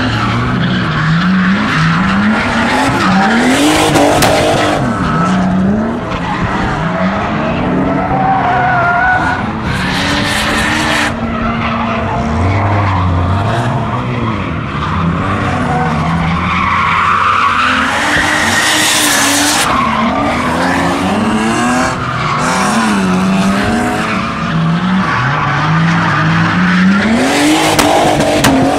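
Drift cars sliding around a cone course: engines revving up and down over and over, with several bursts of tyre screech.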